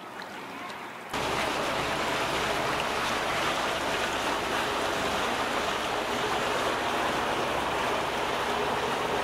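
Steady outdoor rushing noise of water and wind, starting abruptly about a second in and holding level.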